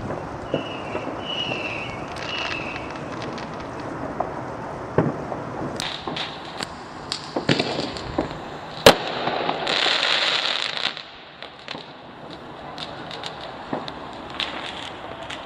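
Fireworks going off in a scatter of pops and bangs, with one sharp loud bang about nine seconds in, followed by a second or so of crackling hiss.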